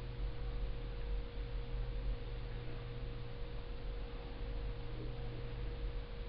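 Room tone: a steady low hum with a faint, constant higher tone running through it and no other events.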